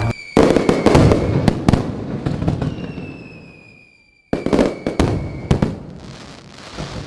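Fireworks going off in two volleys of sharp cracks and crackling, the first just after the start and the second about four seconds in, each dying away in a crackling tail.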